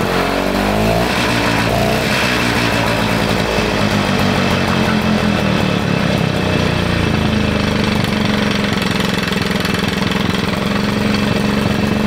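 Jacobsen 321 two-stroke lawn mower engine running. Its pitch rises in the first second, then it runs steadily.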